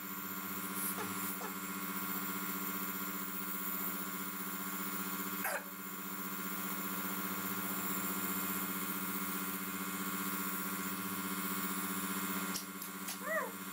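Compressor nebulizer running, a steady motor hum with an airy hiss, giving a toddler a steam (aerosol) treatment. A couple of brief falling squeaks cut in, one about five seconds in and more near the end.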